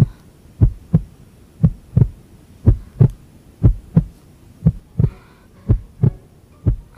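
Heartbeat sound effect: a low double thump, lub-dub, repeating steadily about once a second.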